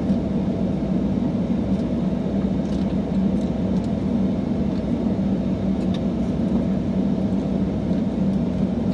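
Steady road and engine rumble inside a moving car's cabin, low and even throughout.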